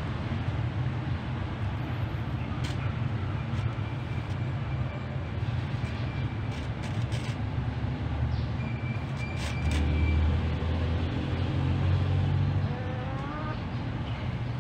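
Steady low rumble of road traffic, swelling for a few seconds about two-thirds of the way through, with a short rising whine near the end.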